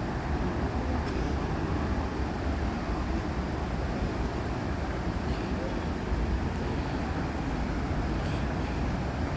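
Steady roar of a waterfall heard from a distance, an even rushing rumble with no distinct events.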